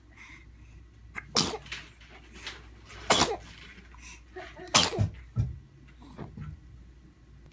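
Three sneezes in a row, about a second and a half to two seconds apart, followed by fainter short sounds.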